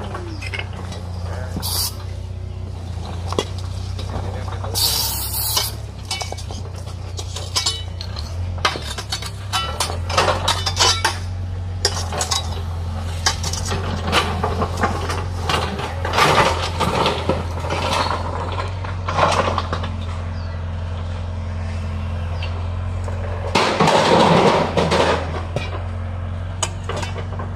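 Metal hoe blades chopping and scraping into dirt, stones and broken brick, making repeated clinks and scrapes, with a louder stretch of scraping near the end. Underneath, an engine runs steadily.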